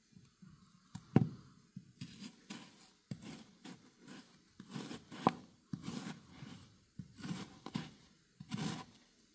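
Kitchen knife slicing a peeled raw onion on a wooden cutting board: a sharp knock about a second in, then a run of short cutting strokes at irregular spacing, roughly two a second.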